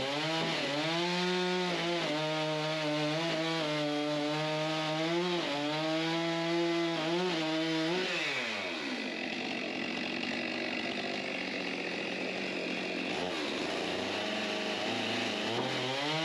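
Stihl MS 462 two-stroke chainsaw running at full throttle, its pitch dipping repeatedly as the chain bites into a maple log to cut it into blocks. About eight seconds in the throttle is let off and the engine winds down to idle.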